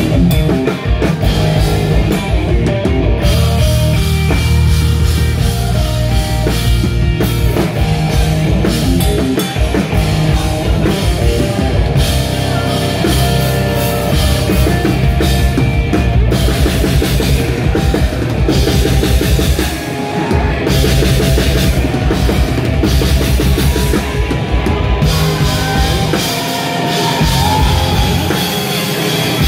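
Post-hardcore band playing live and loud: a pounding drum kit with electric guitars and bass.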